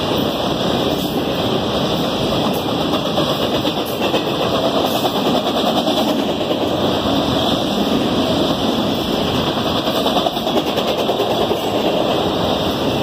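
Enclosed auto-rack freight cars rolling past close by: a steady, loud noise of steel wheels running on the rails, with fast clicking running through it.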